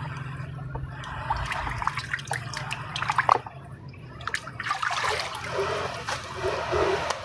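Water trickling and splashing, with sharp clinks and clatter of dishes, as in washing plates.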